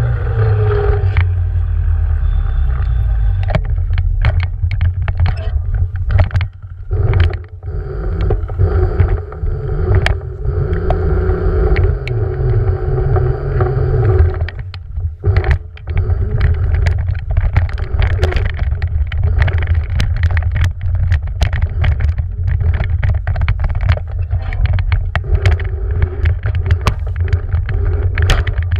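Beaster BS11 electric scooter riding, recorded from a camera mounted on it. Wind buffets the microphone with a heavy rumble, and a steady motor whine shifts pitch with speed. Frequent sharp clicks and knocks come as the scooter jolts over the paving and the sand.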